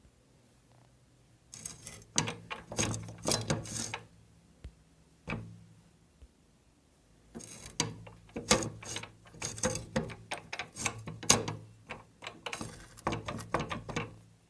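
Metal mechanism of a guillotine paper cutter clicking and clattering in two bursts of quick, irregular clicks, with a single knock in between and a low hum underneath.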